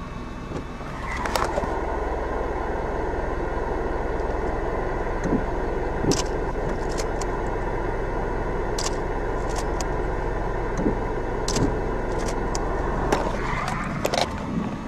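A vehicle on the move: a loud steady rushing noise with scattered sharp knocks and clicks, rising about a second in and easing off near the end.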